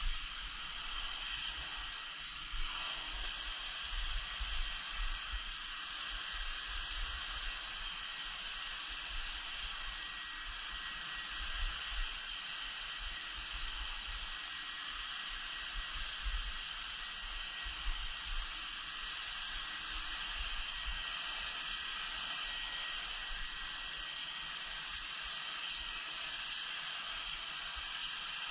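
HVLP spray gun hissing steadily as it atomises Plasti Dip onto a truck's body panels, with a low hum underneath.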